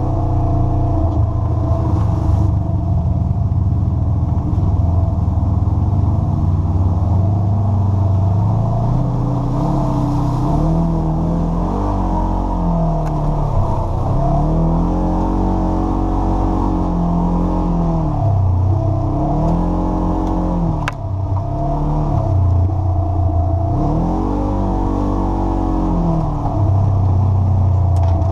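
Polaris RZR side-by-side's engine pulling along a trail, its pitch rising and falling again and again as the throttle goes on and off, over a steady rumble from the drivetrain and tyres.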